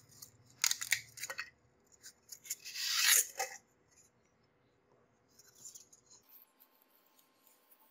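Hands rubbing and handling a polystyrene foam block and its paper template: two spells of scratchy rubbing, the second louder and peaking about three seconds in.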